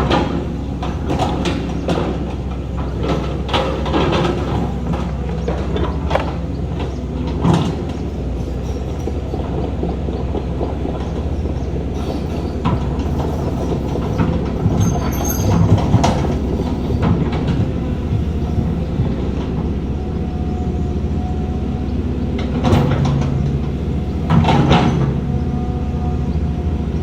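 Heavy diesel earthmoving machinery running steadily, with repeated metallic clanks and knocks scattered throughout and a cluster of louder clanks near the end.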